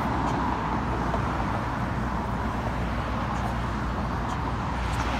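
Steady outdoor background noise: a low rumble under an even hiss, with no clear voice.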